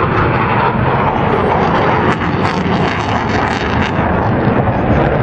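A Panavia Tornado jet's twin RB199 turbofan engines, a loud, steady noise as the jet flies its display.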